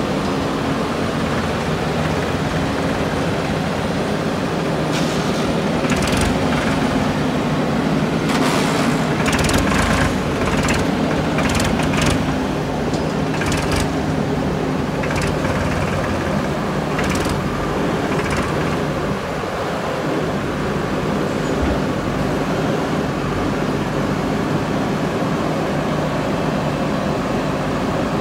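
Diesel engines of a JCB backhoe loader and a farm tractor running steadily, with a series of sharp clanks and rattles in the middle of the stretch.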